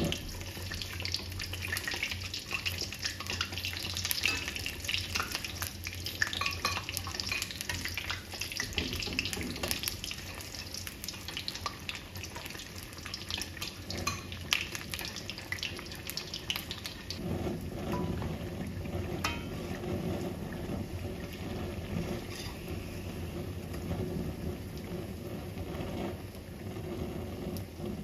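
Stuffed bread pakoras deep-frying in hot oil in a wok: a steady sizzle dotted with many small crackles and pops, growing fuller and lower from about two-thirds of the way in.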